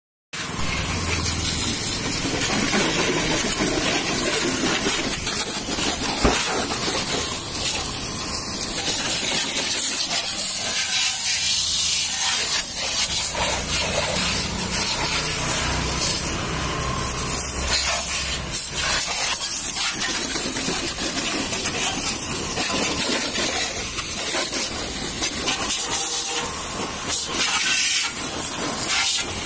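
High-pressure water jet from a pressure washer hissing steadily as it sprays a Honda Activa scooter's plastic body panels, splashing onto the wet concrete floor.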